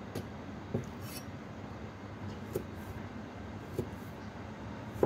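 A cleaver knocking on a wooden chopping board while tomato halves are cut into wedges: a handful of separate, sharp knocks, irregularly spaced about a second apart, over a steady faint background.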